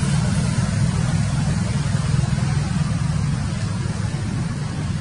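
A steady low rumble with a fainter hiss above it, unchanging throughout.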